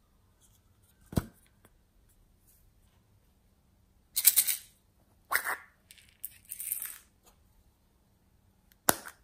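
Small plastic containers of slime add-ins being handled: a sharp plastic click about a second in and another near the end, with three short rattling, rustling bursts in between.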